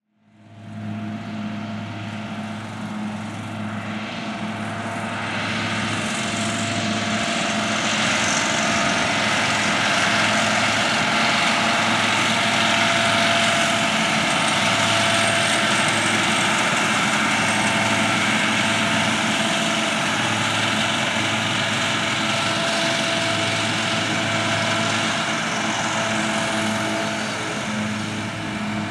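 John Deere R4038 self-propelled fertilizer spreader running as it works across a field, a steady engine drone with a low hum. It grows louder to its closest point about halfway through and then eases a little as it moves away.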